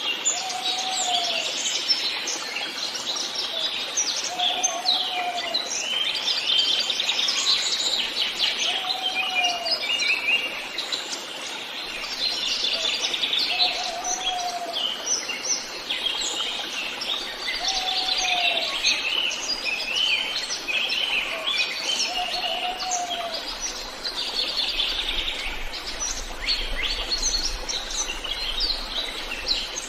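A dense chorus of many songbirds chirping and singing at once in woodland, with overlapping high trills and whistles. Under them a short, low, arched note repeats about every four seconds.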